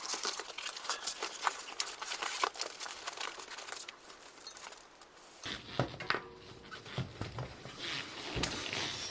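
Hands working on bicycle wheel parts: a quick run of small clicks and rustles, then from about five seconds in fuller, heavier handling noise with one sharp knock near the end.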